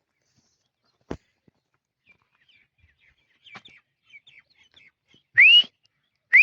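Francolin (teetar) calling: soft chirps, then two loud, short, rising whistles about a second apart near the end. A single sharp click about a second in.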